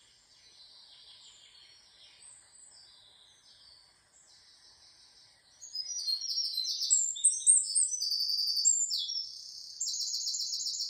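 Songbird singing: high chirps and rapid trills, faint at first and much louder from about halfway through.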